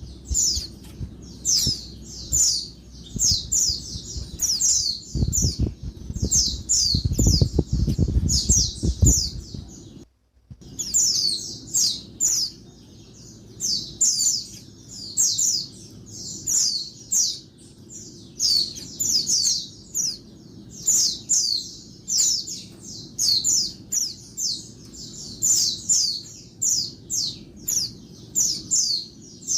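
Female white-eye (pleci) calling: a rapid, unbroken run of short, high chirps. This is the noisy female call used to stir male white-eyes into song. The calls stop briefly about ten seconds in.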